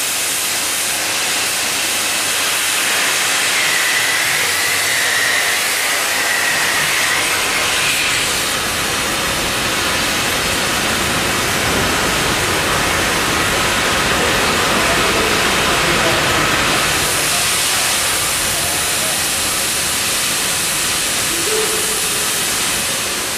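CNC cutting torch cutting through a steel beam section with a loud, steady hiss, and a deeper rumble coming up through the middle.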